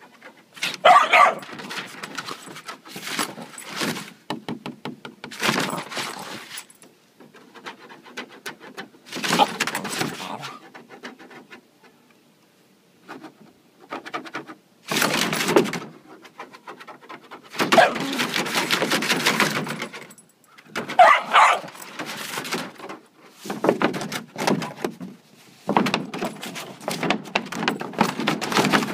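Labradoodle puppy in a plastic kiddie pool, barking twice, once about a second in and again about two-thirds of the way through. In between come repeated bursts of scrabbling noise as it paws at the pool floor.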